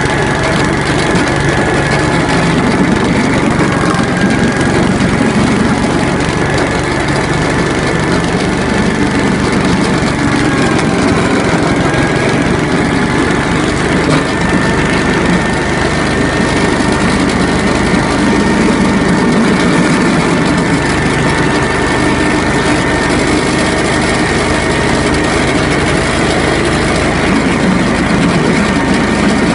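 ZID 4.5 single-cylinder petrol engine running steadily, driving a screw-cone log splitter. Its pitch sags briefly a couple of times as the cone works into the logs.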